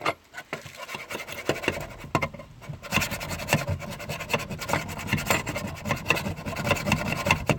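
Quick, uneven scrubbing strokes on the car's bare floor metal, cleaning it back ready for welding; the scrubbing gets louder about three seconds in.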